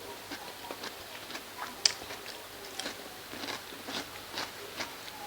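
Chewing a mouthful of dal and rice: a run of short, uneven mouth clicks, with one sharp, louder click about two seconds in.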